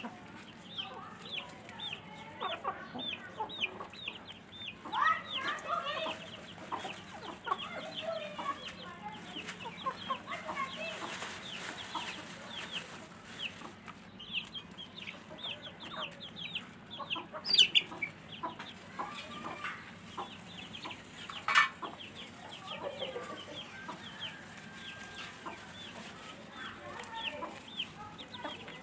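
Hens (Sussex, Aseel and Golden Misri) clucking as they feed, over a steady run of short high peeps about two a second. Two sharp knocks stand out, one past halfway and one a few seconds later.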